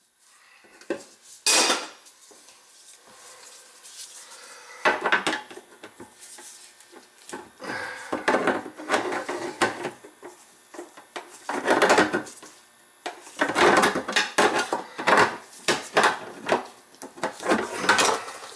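Hand tools clanking and scraping against a stainless steel sink deck in irregular knocks and scrapes while metal is worked at a faucet mounting hole, busier and louder in the second half.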